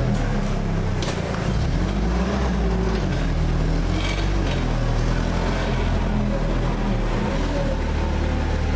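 Winery grape press machinery running, a steady low mechanical hum with a tone that slowly rises and falls.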